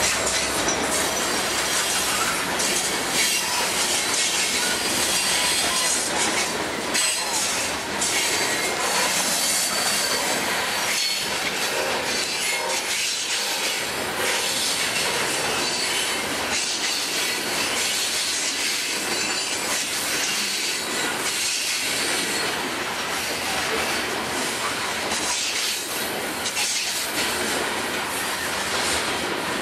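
Freight train hopper cars rolling past close by: a steady rattle and rumble of steel wheels on the rails, with repeated clicks as the wheels cross rail joints.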